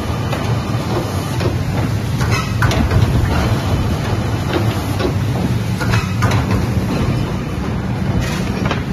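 Automatic rigid box tray-making machine running with a steady low hum, and a few short sharp sounds from its moving parts at irregular intervals.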